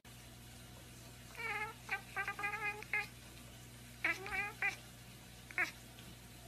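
Orange tabby cat giving short, quick meows in runs: a rapid string about a second and a half in, three more around four seconds, and a single one near the end.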